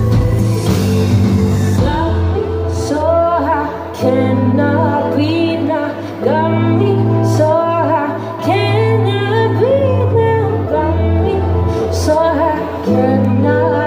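A woman singing live into a microphone over an electronic R&B backing track with a deep, steady bass, recorded from the audience.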